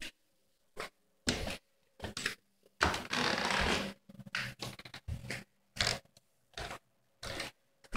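Irregular rustling and scuffing bursts, with one longer scrape about three seconds in: handling noise from a phone being carried while walking.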